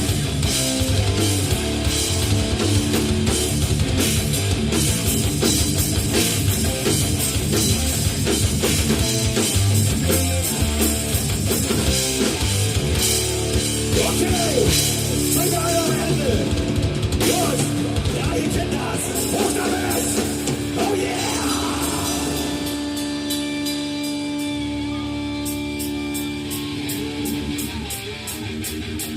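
Heavy metal band playing live: distorted guitars, bass and a drum kit at full volume. Near the end the drums drop out for a few seconds, leaving held guitar notes, before fast, regular drum hits come back in.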